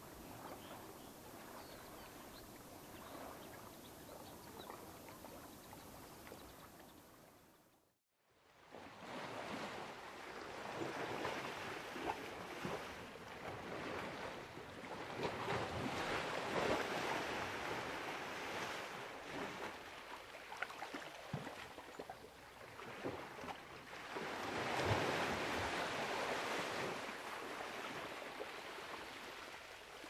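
Small sea waves washing onto a beach: a quieter steady wash that fades out about eight seconds in, then a louder recording of surf swelling and falling back, with two bigger surges, one in the middle and one near the end.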